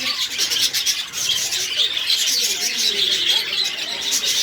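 Dense, continuous chorus of many caged birds chirping and twittering at once, with no single call standing out.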